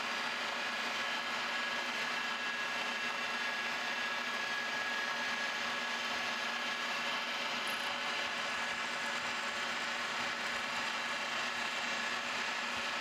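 A vertical milling machine running with a small end mill cutting a keyway slot into a metal bushing, taking a light roughing pass. It makes a steady hum with a high whine that does not change.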